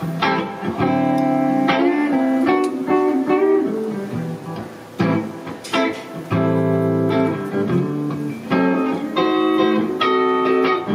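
Guitar played through the PA during a line check: struck chords and a short run of quick single notes, with brief pauses between phrases while its input gain is set.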